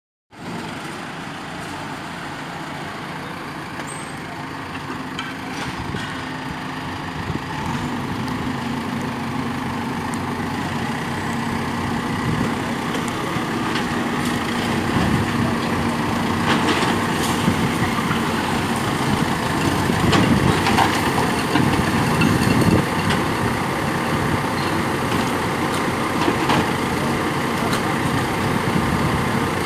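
Diesel engines of backhoe loaders running steadily, slowly growing louder, while the excavator arm breaks into a building, with scattered knocks and clatter of masonry.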